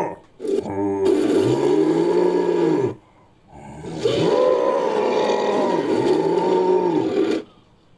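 Lion-like creature roar sound effect: a brief rattling growl, then two long roars, the second longer, each swelling and falling in pitch.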